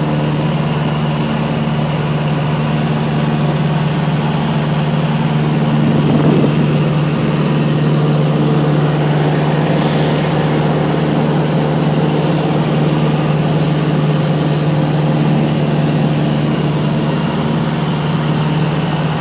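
Cessna 172S's four-cylinder Lycoming piston engine and propeller running steadily, a constant low drone that holds one even pitch.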